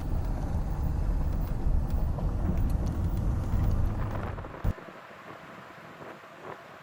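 Wind buffeting the microphone as a loud low rumble, which cuts off suddenly with a click about four and a half seconds in, leaving only a faint wind noise.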